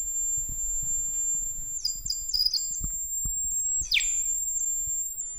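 EMF meter sounding its detection alert: a steady high-pitched whine, a cluster of short chirps about two seconds in, and one falling sweep about four seconds in. The alert signals a continuous electromagnetic field reading.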